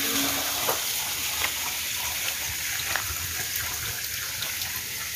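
Spring water running steadily, thin streams pouring from pipes onto rock with a small waterfall behind.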